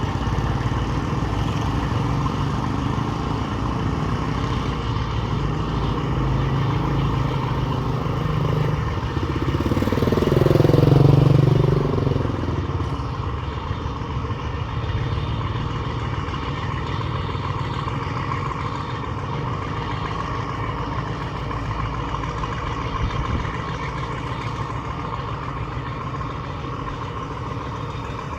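An engine running steadily. About ten seconds in, a louder sound comes in whose pitch falls and then rises again over about two seconds.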